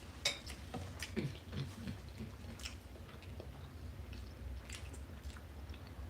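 A person chewing food close to the microphone, with irregular wet mouth clicks and smacks. This is mukbang eating.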